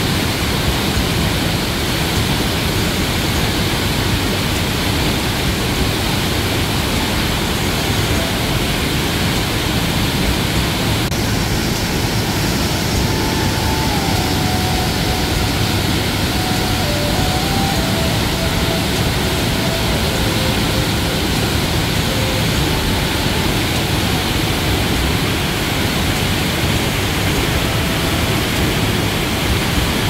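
Paraeso Falls, a 15 m waterfall, pouring steadily into its deep plunge pool: a loud, unbroken rush of falling water.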